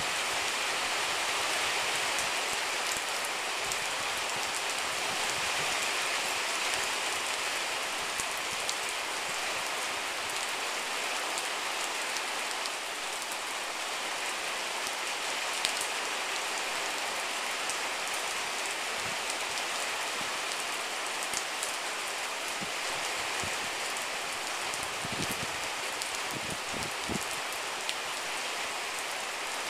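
Steady rain falling on waterlogged grass and standing floodwater, an even hiss with scattered sharp ticks of single drops hitting close by.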